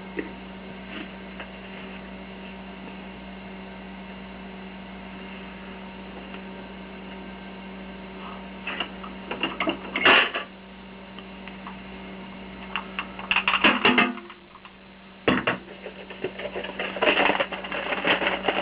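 Clinks and clatter of metal and glass being handled at an espresso machine, in short bursts about halfway through and again toward the end, over a steady low hum.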